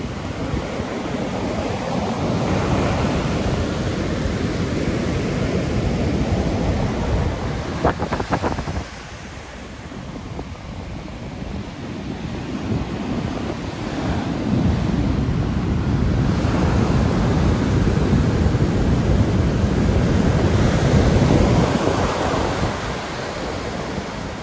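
Heavy, wind-churned surf breaking and washing up a sandy beach, with gusty wind buffeting the microphone. The sound swells and fades as waves come in, dips sharply about nine seconds in, and builds to its loudest stretch in the second half.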